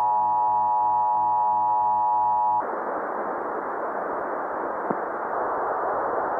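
A steady electronic tone with many overtones, over a faint low pulsing, cuts off suddenly about two and a half seconds in. It gives way to a steady hiss of broadcast static, with one faint click near the end.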